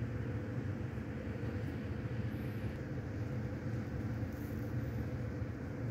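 A steady low droning hum, like a running motor or fan, continuous and even throughout.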